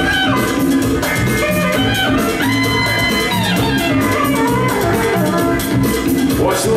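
Loud breakbeat music for breakdancing, with a steady drum beat and pitched instrument lines, played by a DJ over the hall's sound system.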